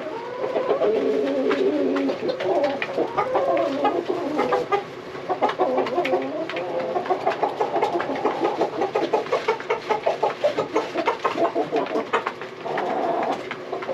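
Hens clucking and crooning: low wavering calls at first, then a fast, steady run of short clucks through the second half.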